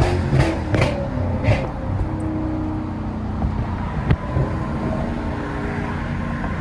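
Lexus GS430's V8 with its catalytic converters removed, running at a fairly steady engine speed on the road. A few sharp ticks come in the first second and a half, and one sharp click about four seconds in.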